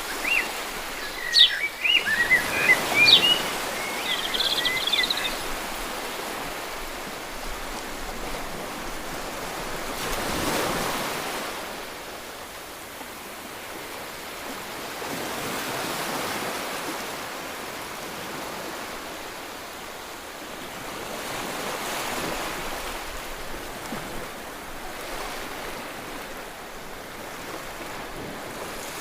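Ocean waves washing in, the surf rising and falling in slow surges every five to six seconds. A bird chirps through the first few seconds.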